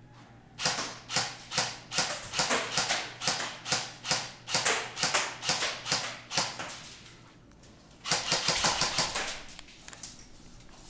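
Airsoft electric guns (AEGs) firing: rapid single shots at about three a second for some six seconds, then a sustained full-auto burst of about a second and a half.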